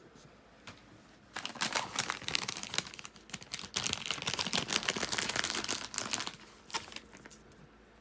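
Cough drop bag crinkling as it is opened and handled, in two long stretches of crackling: about a second and a half in, and again from about four to six seconds in.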